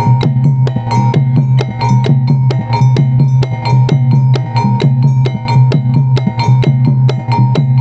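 Javanese gamelan playing jathilan dance accompaniment: struck metal keyed instruments and gongs ringing in a quick, steady beat over a drum.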